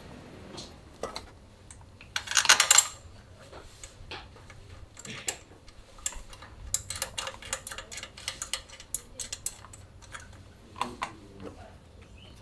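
Clinks and clicks of hand tools and metal parts being handled during workshop work: a loud metallic rattle about two seconds in, then a run of irregular clicks.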